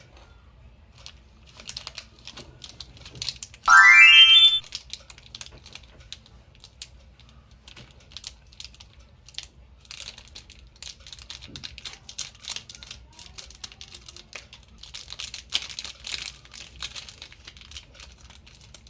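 Candy wrappers crinkling and crackling as candies are unwrapped. About four seconds in, a short, loud rising tone sounds for under a second.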